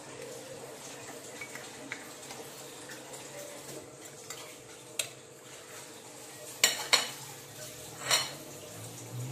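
A metal serving utensil clinking against a ceramic plate as fried chicken drumsticks are arranged on it: a few separate clicks, the loudest two close together about two-thirds of the way through. A steady low hum runs underneath.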